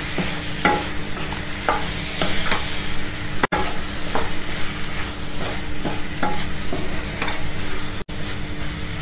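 A spatula stirs and scrapes prawns and mushrooms through a masala in a frying pan, over a steady sizzle, with a scraping stroke every half second or so. The prawns and mushrooms are being sautéed to coat them in the spices. The sound cuts out for an instant twice.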